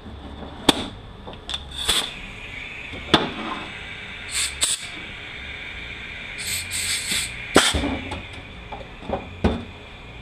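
Short hisses of compressed air from a rubber-tipped blow gun aimed into an automatic transmission clutch drum to push the piston out, two about four and a half seconds in and a longer run around seven seconds. Sharp metal clanks and knocks of the drum and parts being handled come in between.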